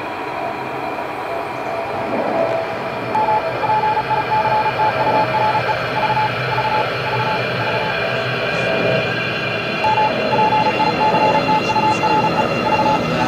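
Underground train running, a steady rumble with held tones. Over it a rapid electronic beeping starts about three seconds in, breaks off for a moment, and resumes.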